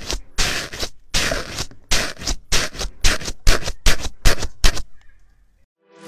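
Repeated crackling crunches, about two a second and coming quicker toward the end, as a microphone head and a fingertip are pressed into a porous, bubbly rainbow foam slime. They stop shortly before the end.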